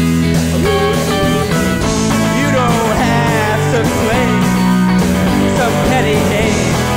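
Live rock band playing, with electric and resonator guitars, bass guitar and drums. A lead line bends up and down in pitch through the middle.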